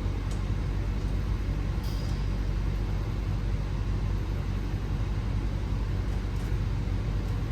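Steady low mechanical hum, with a few faint metallic clinks as exhaust pipe sections are fitted together.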